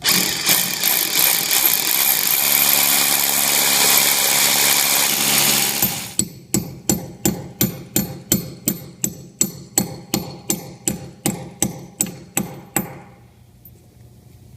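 A power drill boring an anchor hole into a masonry wall for about six seconds, then stopping abruptly. A hammer then drives the anchor bolt into the hole with about twenty even strikes, about three a second.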